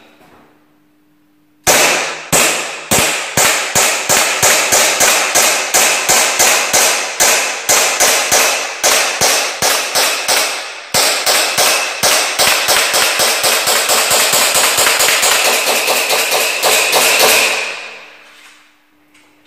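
KJ Works Hi-Capa gas-blowback airsoft pistol firing a long string of shots from an extended magazine. The shots start about two seconds in at roughly three a second, then come much faster, almost running together, from about the middle, and stop near the end.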